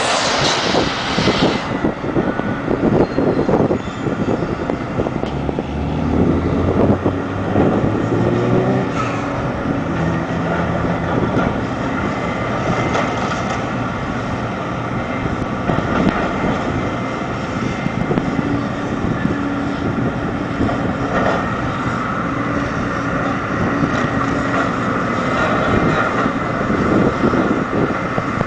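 Diesel engines of tracked demolition excavators running and revving under load as they pull down a brick wall, with scattered knocks and crashes of falling masonry and debris. A loud burst of crashing rubble comes in the first two seconds.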